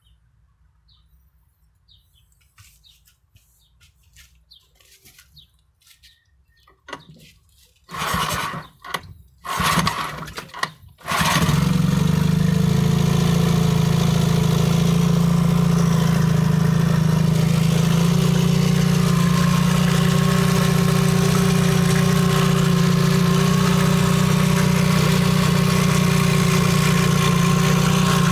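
Yamaha F20 two-cylinder four-stroke outboard, cowling off, freshly serviced: after a few faint clicks it is cranked in two short bursts, catches about eleven seconds in, and settles into a steady idle.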